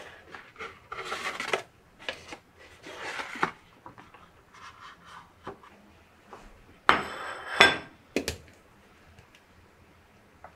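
Rustling and light knocks of a cardboard pastry box being handled. About seven seconds in comes a louder clatter with a brief ring as kitchenware is set down, followed by another knock.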